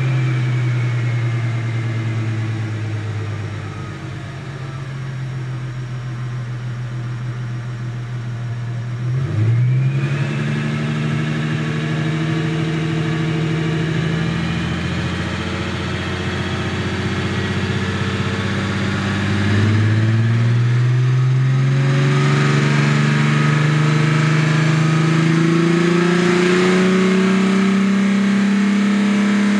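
Ford Mustang 3.8-litre V6 engine and exhaust revved and held at steady engine speeds while still cold. The pitch steps up about ten seconds in, then dips and climbs slowly toward about 4,000 rpm near the end, wavering a little where the revs are hard to hold steady.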